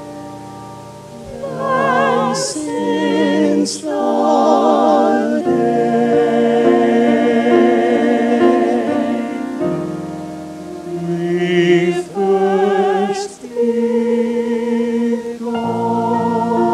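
Small mixed choir of men and women singing a slow piece in harmony, with long held notes and vibrato. It starts soft, swells about a second and a half in, and pauses briefly between phrases.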